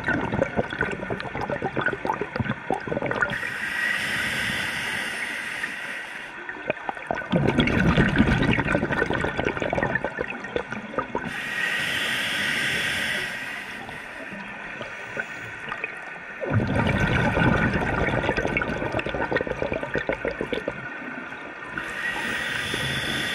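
Scuba breathing through a regulator underwater: each breath is a hissing inhale through the demand valve followed by a long gurgle of exhaled bubbles, about three breaths in slow turn.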